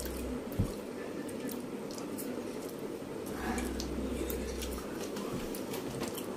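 Noodles being chewed and slurped off forks, with light clicks of forks on plates and a thump about half a second in, over a steady low hum.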